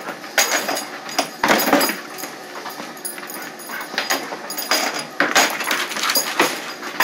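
German Shepherd snuffling and moving about close by: short irregular noisy bursts, with a few dull thumps about one and a half seconds in and again past five seconds.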